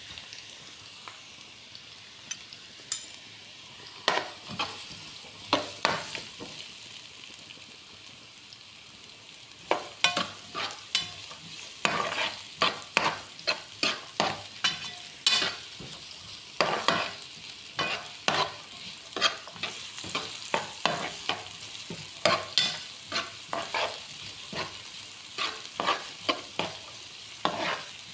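Chopped red onion sizzling in oil in a nonstick frying pan, with a spoon stirring and scraping against the pan. The stirring comes as a few scattered strokes at first, then as quick repeated strokes from about ten seconds in.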